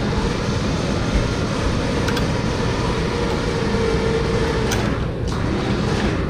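Lifting machinery running steadily with a low rumble while a heavy planetary gear set hangs from lifting eyes being stood on end, with a few light metallic clicks.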